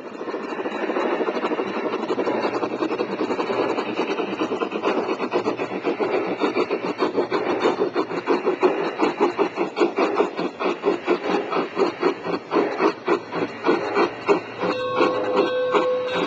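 Bachmann large-scale Shay geared model steam locomotive running past on garden-railway track: a continuous rattling rumble of its gears, wheels and rails with a rapid, even pulsing. A steady tone sounds near the end.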